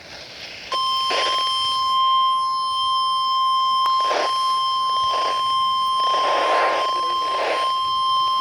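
NOAA Weather Radio's 1050 Hz warning alarm tone, received on a weather radio and signalling a Severe Thunderstorm Warning. It is one loud, steady, unbroken tone that starts just under a second in, with patches of static hiss breaking in over it.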